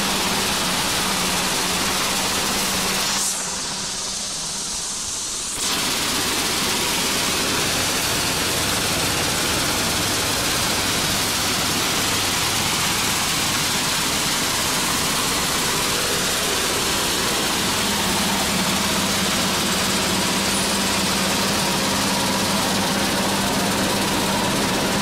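Vibrating sieve machine grading chopped nuts, running steadily: a constant mechanical rush with a steady hum beneath it. The sound dips and thins for about two seconds a little after three seconds in, then returns.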